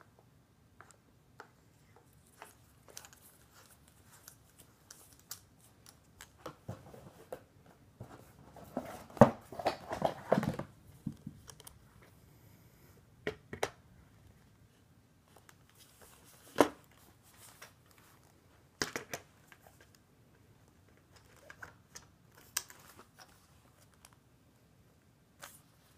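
Clicks, knocks and rattles of a Planet Eclipse Geo3 paintball marker and its compressed-air tank being handled and fitted together. The handling is busiest about nine to eleven seconds in, with a few single sharp clicks later.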